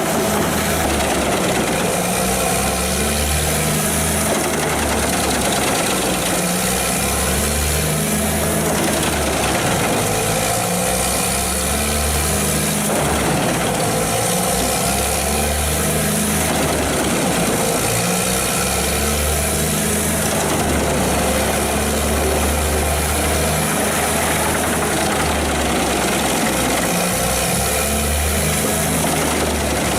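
Large industrial wood chipper running loud and steady, its heavy engine drone shifting slightly up and down in pitch under load.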